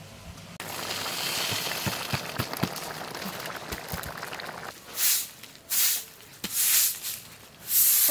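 Short soft grass broom sweeping a bare packed-earth yard, with four quick swishing strokes from about five seconds in. Before that comes a few seconds of steady crackling hiss.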